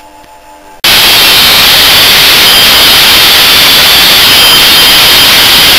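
Angle grinder cutting into the steel shell of a scroll compressor: a loud, steady grinding noise with a high whine, starting abruptly about a second in.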